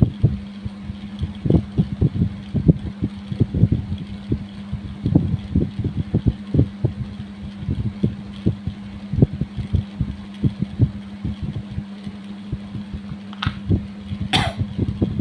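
Kerokan: a coin scraped in repeated short strokes across the skin of the chest, a few strokes a second, over a steady low hum. A brief higher-pitched sound rises near the end.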